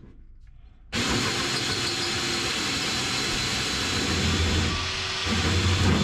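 Drill running a hole saw through the RV-7A's thin aluminum baggage-floor sheet. It cuts in with a steady whir about a second in and gets louder and deeper in the second half.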